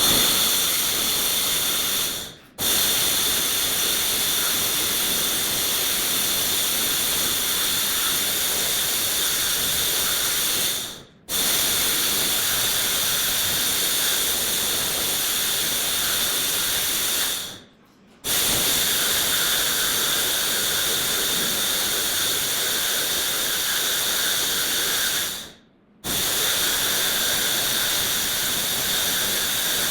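A loud, steady hiss that dies away and then starts again abruptly three times.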